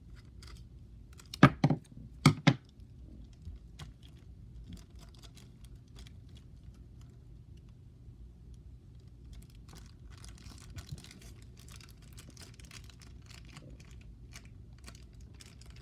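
Tape and a taped marble mesh being handled: two sharp knocks about a second and a half and two seconds in, then many small scattered clicks and crinkles, busier in the second half.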